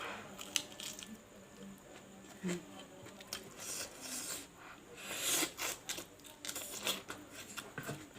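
A person eating beef masala curry up close: irregular chewing and mouth sounds in short wet bursts, thickest from about three and a half to seven seconds in.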